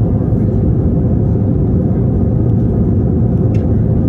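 Airbus A321 cabin noise heard from a window seat over the wing: the steady, deep rumble of the jet engines and rushing airflow.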